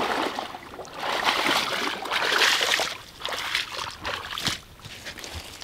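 Water splashing and sloshing as a person wades through a shallow lily pond, hauling a woven bamboo fishing basket through the water. The sound is loudest in the first few seconds, then breaks up into smaller splashes and rustles.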